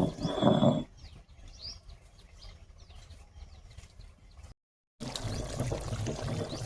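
Small birds chirping. The first second holds a few loud, low pulsing sounds. About four and a half seconds in the sound cuts out briefly, then comes back with a steady low rumble under the chirps.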